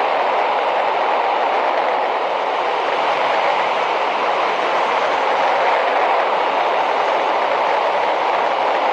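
Hurricane ultralight aircraft in steady cruise flight: the continuous drone of its pusher engine and propeller mixed with rushing wind, holding an even level throughout.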